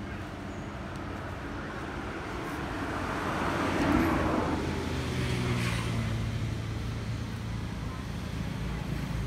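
A motor vehicle passing by, swelling to its loudest about four seconds in and then fading, over a steady low engine hum.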